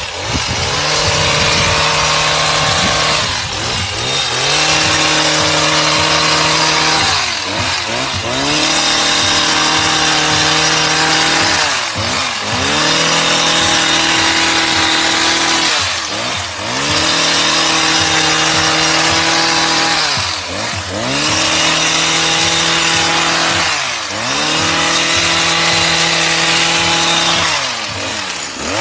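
Two-stroke petrol hedge trimmer running at high revs as it cuts lavender stalks. About every four seconds the engine note dips briefly and comes back up.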